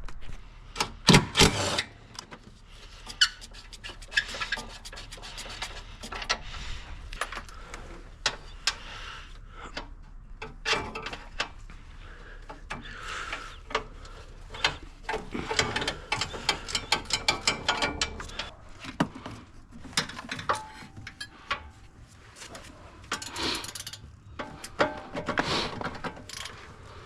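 Mechanic's hand tools working in a car's engine bay during a spark plug job: irregular metallic clicks, knocks and scraping.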